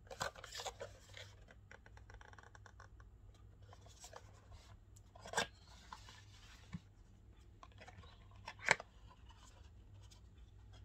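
Cardboard watch packaging being handled: a printed card sleeve slid off the inner box and the box's flaps pulled open, with papery scraping and rubbing and a few sharp taps.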